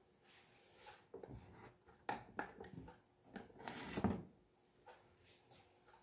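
Faint clicks and knocks as a Black+Decker single-cup drip coffee maker is switched on at its power button, with a short rustle about four seconds in.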